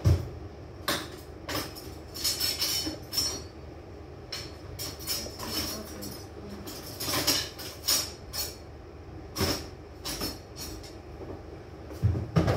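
Kitchen handling clatter: irregular knocks, clinks and rustling scrapes as containers and utensils are picked up and set down on a countertop, over a steady background hum.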